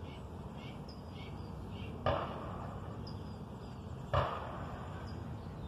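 Two sharp cracks about two seconds apart, the loudest sounds here, over birds chirping.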